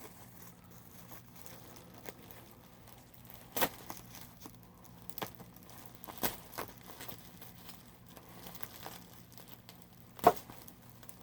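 Packing material crinkling and rustling as a boxed model is unwrapped by hand, with scattered light clicks and knocks; one sharper knock about ten seconds in.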